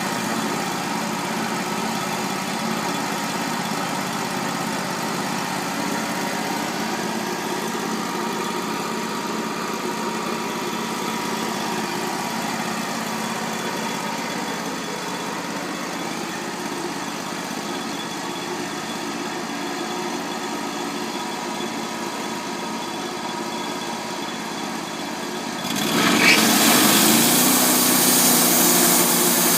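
Wood-Mizer LT35 portable band sawmill running steadily at a constant engine note. About four seconds before the end it suddenly gets louder, with a bright hissing rush, and the engine note dips and settles as the band blade goes into a cut.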